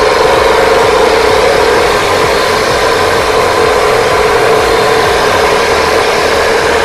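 A small engine idling: a loud, even drone with a strong steady hum and no change in speed.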